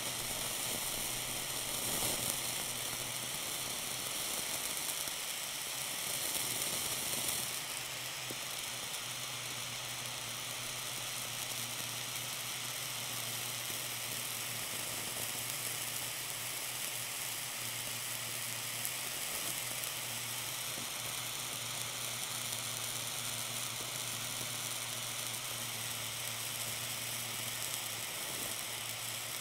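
Tiny blowtorch hissing steadily with its flame on a block of blue cheese, the melting cheese sizzling under it. A little louder for about the first seven seconds, then even.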